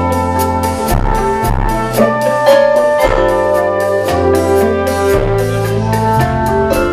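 Live jazz band playing: drum kit with cymbals keeping a steady beat under an electric bass line and held brass chords.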